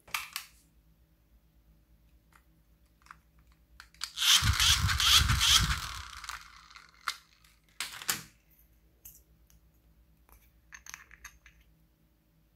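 Small battery-powered handheld toy fan whirring for about two seconds, its airflow buffeting the microphone into a low rumble. Scattered light clicks and taps of plastic items being handled come before and after it.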